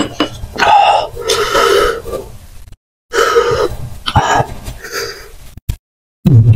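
Close-miked mouth sounds of a person eating raw oysters: loud, irregular bursts of slurping and chewing, cut by two short gaps of silence.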